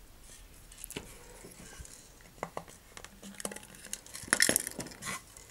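Hobby knife: a few small clicks as the blade is seated in its handle, then the blade scraping and cutting at a hole in the plastic nose cone, a run of scratchy clicks that grows louder near the end.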